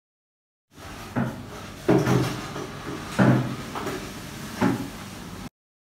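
Handling of a plastic popsicle mold and the frozen popsicle: about five knocks and clunks of hard plastic over a steady low background. The sound cuts in about a second in and cuts off suddenly near the end.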